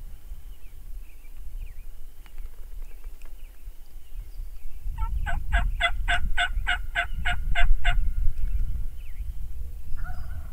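Wild turkey yelping: a run of about eleven evenly spaced yelps, roughly four a second, lasting about three seconds, starting about five seconds in.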